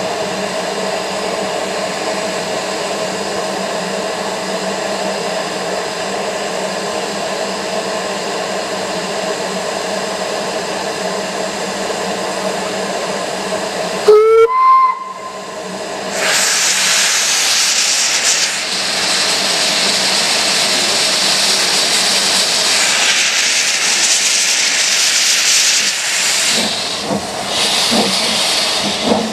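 Narrow-gauge steam locomotives standing in steam, with a steady pitched hiss of escaping steam. About halfway through, a short steam-whistle toot rises in pitch. A louder hiss of steam billowing from the engines then follows as the train starts away.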